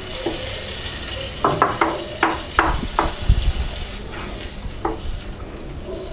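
A wooden spatula stirring mashed potato into a simmering chicken stew in a non-stick pot, knocking against the pot several times in quick succession about one and a half to three seconds in, then once more near the end, over a steady hiss from the pot.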